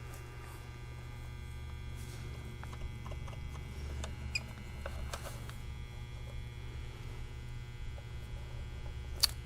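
Steady low electrical hum from the bench setup, with faint scattered ticks and rustles of handling and one sharp click near the end.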